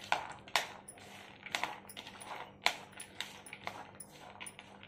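Hand mixing boiled moong beans with chopped vegetables and broken gathiya in a plastic bowl: irregular clicks and rustles.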